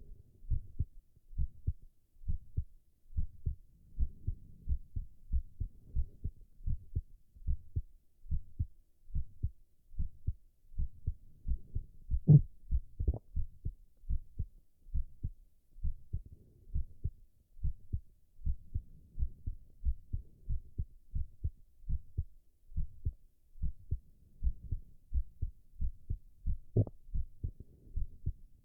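A man's heartbeat: low lub-dub thumps in a steady, even rhythm, with a few louder, sharper knocks about twelve and thirteen seconds in and again near the end.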